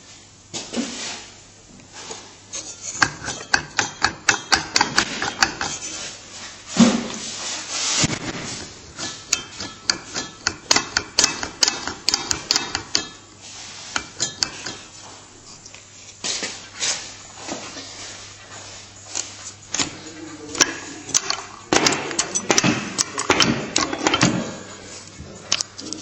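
Repeated sharp metallic knocks and clanks in irregular bursts, from hand work on a VAZ-2107 propeller shaft and its center support bearing.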